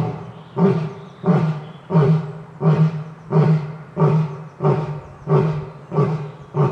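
Lion giving a long, evenly spaced series of short grunting roars, about three every two seconds, each starting suddenly and fading away, like the grunt series that ends a lion's roaring bout.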